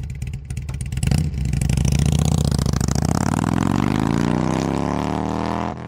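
A motorcycle engine runs with an uneven, pulsing beat, revs up about a second in, then accelerates with its pitch rising steadily for several seconds before dropping away near the end.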